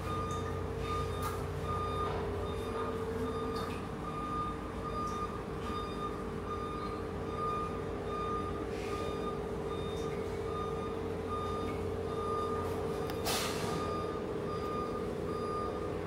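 Steady drone of the ferry's engines and machinery, with a held mid-pitched tone over a low hum, and an electronic beep repeating about twice a second. A few sharp clicks, the loudest one about thirteen seconds in.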